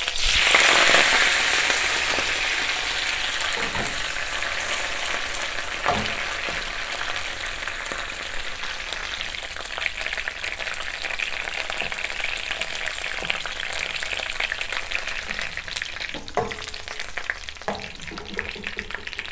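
Fresh basil leaves frying in very hot oil in a pan: a steady sizzle, loudest as the leaves go in and slowly dying down as they fry. A few light knocks of a wooden spatula against the pan.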